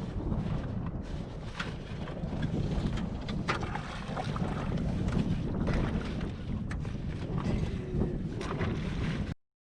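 Wind buffeting the microphone in a steady low rumble, with a few sharp knocks; it cuts off abruptly near the end.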